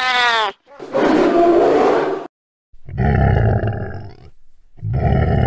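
Dubbed animal sound effects: a short pitched cry, then a longer rough growl, then two low rumbling grunts about two seconds apart.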